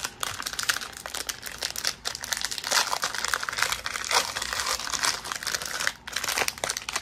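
Plastic wrapping of hockey card hanger packs crinkling and crackling as the packs are handled, with a brief lull near the end.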